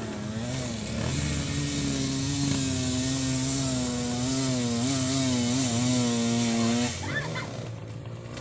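Dirt bike engine labouring up a steep climb, its pitch wavering up and down with the throttle, then cutting off suddenly about seven seconds in.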